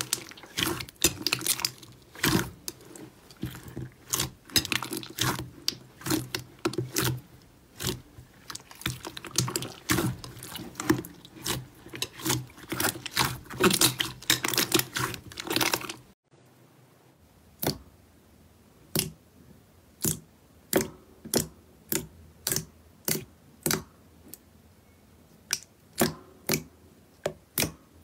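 Hands kneading and squeezing a large mass of glossy slime in a glass bowl, making dense wet clicking and popping. About sixteen seconds in it cuts to fingers pressing into a softer pale slime, which gives sharp separate pops at about two a second.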